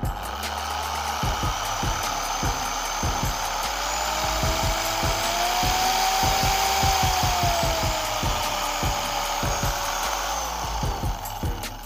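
H&L 8050 5-inch dual-action (random orbital) polisher running free in the air with a foam pad fitted and no load. A steady motor whine that rises a little in pitch around the middle and settles back before the end.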